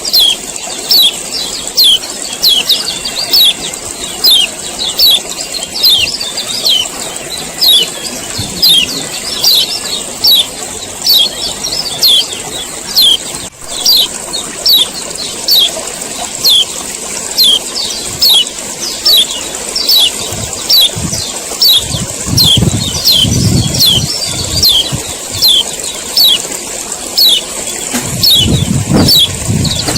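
A male kecial kuning (yellow white-eye) gives its sharp 'ciak ciak' call over and over, about two short, downward-sweeping chips a second, over a steady high hiss. Low rumbles come in twice in the later part.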